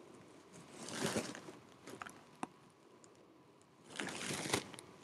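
Faint rustling, twice, with a few soft clicks: a stethoscope chest piece and clothing shifting against skin and fabric as the stethoscope is moved over a patient's abdomen.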